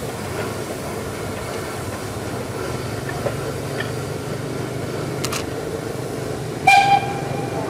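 Sugar-mill steam locomotive moving slowly away, with small motorcycles running past: a steady low rumble with a few faint clicks. Near the end comes one short, loud, high toot, the loudest sound.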